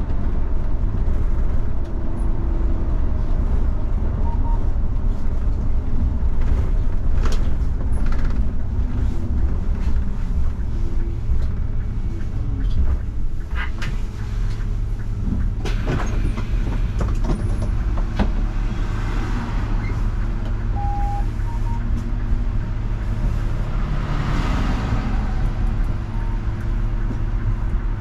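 Mercedes-Benz Citaro CNG city bus driving, heard from inside at the front: a steady low rumble of its natural-gas engine and tyres, with occasional clicks and rattles and a short beep about three quarters of the way through.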